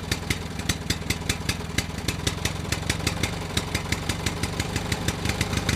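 Engine idling steadily, with a regular putting beat of about six strokes a second over a low hum.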